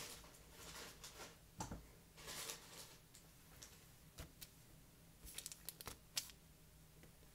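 Faint, scattered clicks and soft rustles of hands working fly-tying tools and materials at the vise, with a quick cluster of small ticks about five to six seconds in, over a low steady hum.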